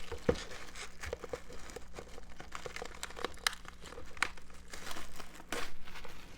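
Plastic shrink wrap crinkling and tearing as it is pulled off a steelbook disc case, in an irregular run of sharp crackles.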